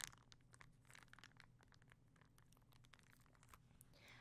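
Faint close-up crinkling and crackling: a quick run of small sharp ticks, densest in the first second and a half, then sparser.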